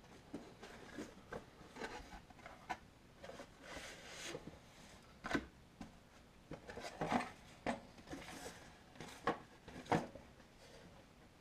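A cardboard box being opened and handled, with an LED light bar in foam packing lifted out onto a table. The sound is irregular scrapes, rubs and soft knocks of cardboard and foam, with a few louder knocks around the middle and near the end.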